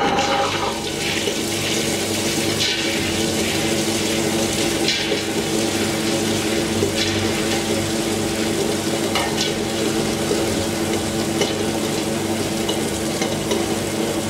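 Premier Compact tabletop wet grinder running, its stone rollers turning in the steel drum: a steady hum with a wet, sizzling swish. Soaked urad dal is tipped in at the start, and the sound changes about a second in as the rollers begin grinding it.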